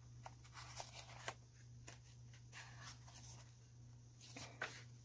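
Faint rustling and light ticks of paper sheets being handled and turned, over a low steady hum.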